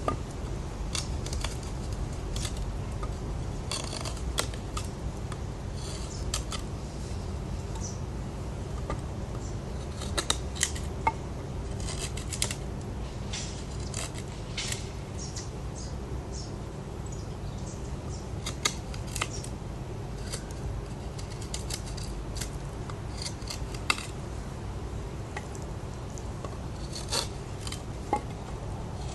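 Spyderco Paramilitary 2 folding knife cutting and carving wood: a run of irregular short scraping cuts and clicks, with a few sharper ones, over a steady low background noise.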